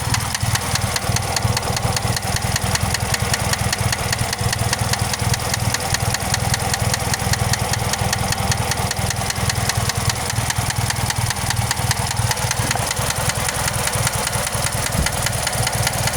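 2001 Pontiac Grand Am's 2.4 L LD9 Twin Cam four-cylinder idling with a steady, rapid, even knock. The knock remains despite new rod and crank bearings, and the owner suspects a wrist pin.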